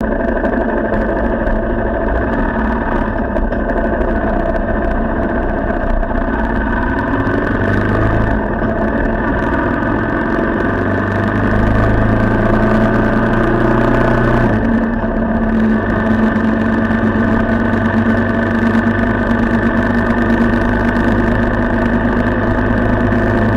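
Motorcycle engine running as the bike is ridden, picked up by an action camera mounted on the front crash guard, close to the engine. The engine note shifts a couple of times midway.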